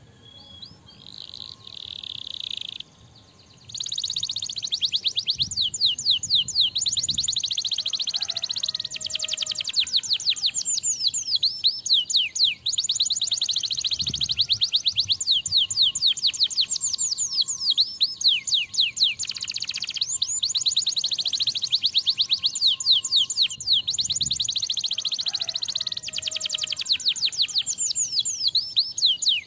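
Domestic canary in full song: a short buzzy opening phrase, then from about four seconds in a loud, unbroken run of very fast trills, each note a quick rising or falling sweep.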